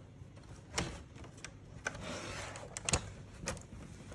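Plastic handling noise as an LCD panel is fitted into an HP E202 monitor's plastic bezel: several sharp clicks and knocks, the loudest about three seconds in, with a brief sliding scrape about two seconds in.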